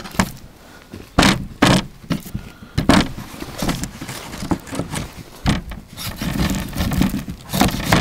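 Large kitchen knife cutting through a calf's tail on a wooden cutting board: several irregular knocks of the blade against the board, with scraping and handling of the meat in between.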